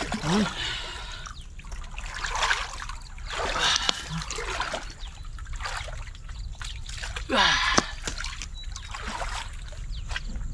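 Muddy pond water splashing and sloshing as people wade and grope for fish by hand, in several irregular bursts, the loudest about seven and a half seconds in.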